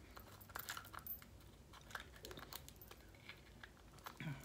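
Faint, scattered small clicks and crinkles, like close handling or mouth sounds, over a quiet room.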